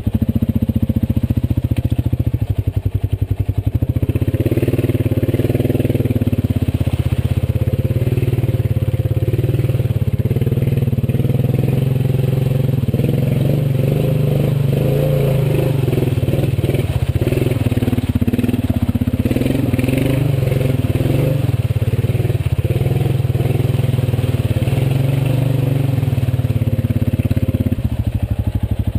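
Honda Rubicon ATV's single-cylinder engine running under load as it drives through mud and water. The engine note rises about four seconds in, holds with small changes in throttle, and eases near the end.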